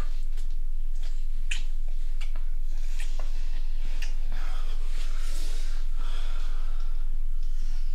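Heavy breathing and gasps of a couple having sex, with soft rustles and small clicks, over a steady low hum.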